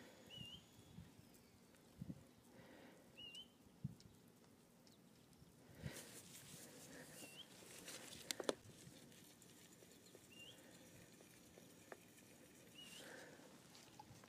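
Near silence broken by a bird's short chirp, repeated five times a few seconds apart, and a few light knocks and taps from handling PVC pipe and fittings, the loudest about eight seconds in.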